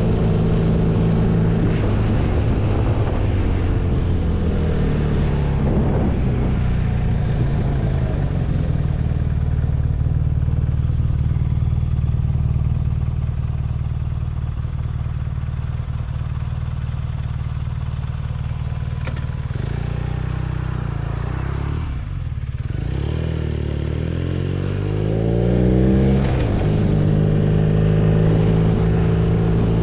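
BMW R nineT's 1170 cc air/oil-cooled boxer twin running under way. The revs hold steady for long stretches, drop briefly about three quarters through, then climb quickly under acceleration before settling again.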